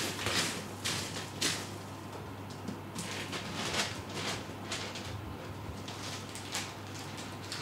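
Cat scratching and raking pellet litter in a plastic litter box: a series of short scraping, rustling scuffs, several close together at first and then more spaced out.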